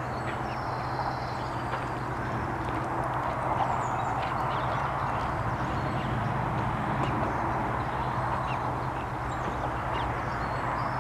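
Steady outdoor background hum and hiss, with a few short high-pitched bird calls near the start and again near the end.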